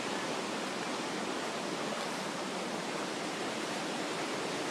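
Steady rushing of a large waterfall close by, an even unbroken roar of falling water.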